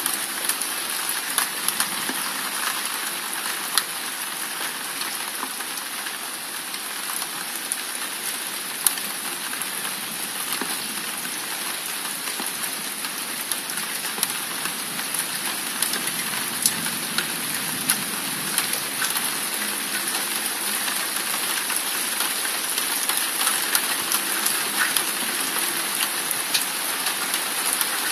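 Heavy rain pouring down steadily: an even hiss sprinkled with many small, sharp drop hits.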